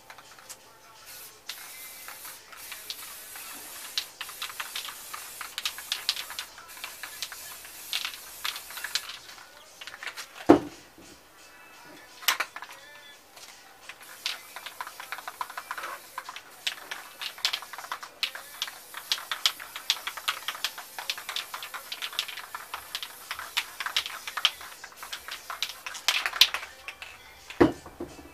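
Aerosol spray paint hissing in long stretches, mixed with quick clicking and rustling as paper or card is worked over the canvas. There are two sharp knocks, about ten seconds in and near the end, like a can being set on the table.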